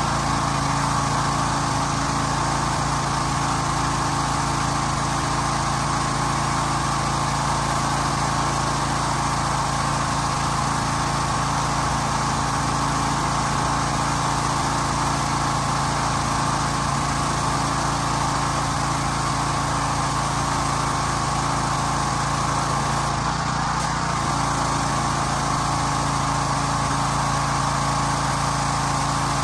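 Pressure washer's small engine running steadily at a constant speed, with the hiss of the high-pressure water spray from the wand.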